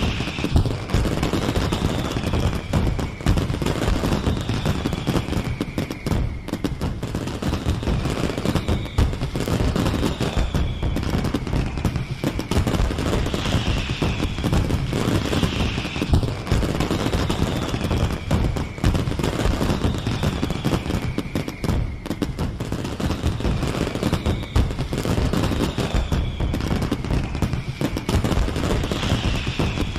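Fireworks display: dense, continuous crackling and popping over a low rumble, with a whistle sliding down in pitch every couple of seconds.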